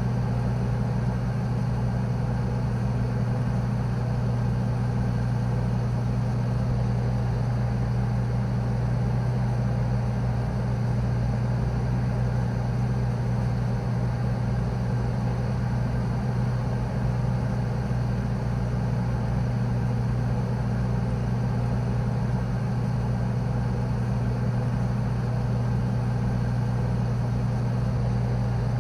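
Continuous low hum of a morgue freezer's refrigeration unit, one steady low drone with a faint even hiss above it and no changes.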